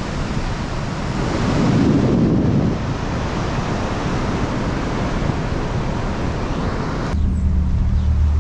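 Sea surf washing onto the beach, with wind buffeting the microphone and a wave swelling louder about two seconds in. About seven seconds in the sound cuts abruptly to a steady low hum.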